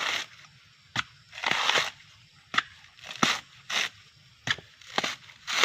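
Coconut husk being peeled off by hand tool: sharp knocks alternating with short bursts of crunching and tearing of the fibrous husk.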